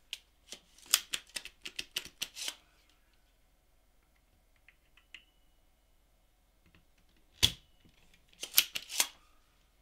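Spring-loaded desoldering pump (solder sucker) pulling solder out of a circuit board encoder's pins. A quick run of clicks and taps from handling the tools, then one sharp snap as the plunger fires about seven seconds in. A short cluster of clicks follows near the end.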